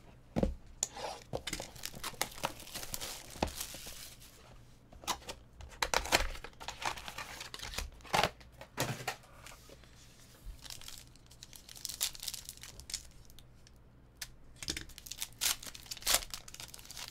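Foil trading card pack wrappers being torn open and crinkled, in irregular rips and crackles, several of them louder.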